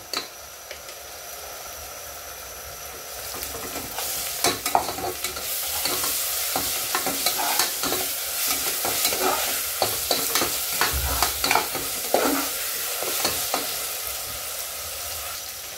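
Onions and ginger-garlic paste frying in oil in an aluminium pressure cooker, sizzling while a metal slotted spatula scrapes and clicks against the pot as it is stirred. The sizzle grows louder about four seconds in.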